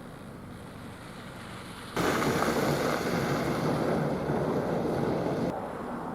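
Strong wind gusting over the microphone: a low steady hiss, then a loud rushing wind noise that starts abruptly about two seconds in and stops just as sharply about three and a half seconds later.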